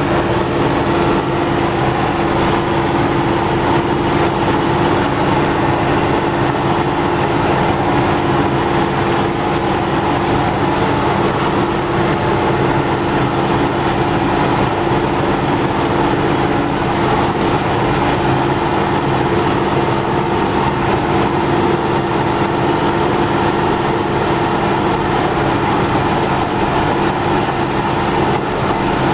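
MTZ tractor's diesel engine running steadily as the tractor drives, with an even drone. The freshly repaired drive axle and gearbox give no whine, which the driver takes as everything working normally.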